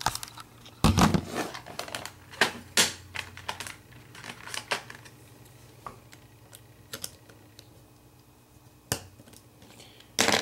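Irregular small clicks and taps of plastic and metal parts as a C-clip is worked off the rotary dial shaft of a RadioShack 22-179A multimeter, with a heavier thump about a second in.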